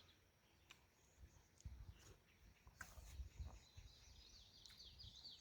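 Near silence: faint outdoor ambience with a few soft scattered clicks. Near the end comes a faint run of quick, high, falling bird chirps.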